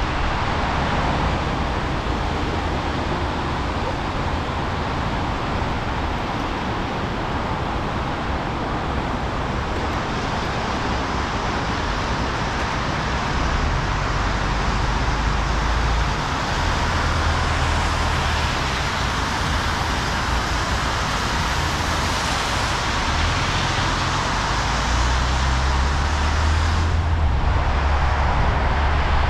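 Steady road noise of a car driving on rain-wet roads: an even tyre hiss over a low rumble.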